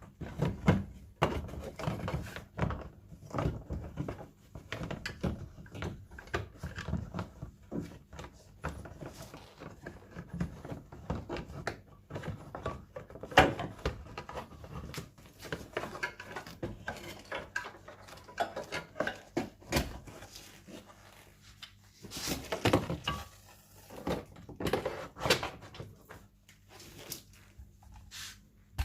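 Irregular clicks, knocks and clatter of parts and tools being handled, with a sharper knock about midway and a cluster of louder knocks near the end.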